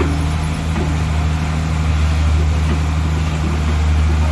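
Heavy diesel engine running steadily at a constant speed, a low even drone with no change in pitch.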